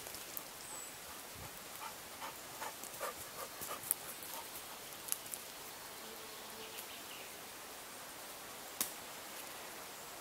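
Short breathy puffs blown into a smouldering bundle of damp tinder to raise a charcloth ember to flame, with light rustling and scattered ticks from the dry grass and one sharp click near the end, over a steady hiss. A dog pants close by.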